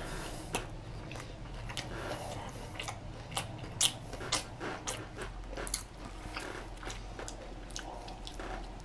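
Close-up chewing of a mouthful of burger crusted with Hot Cheetos crumbs: irregular wet smacks and crunchy clicks, the loudest a few seconds in.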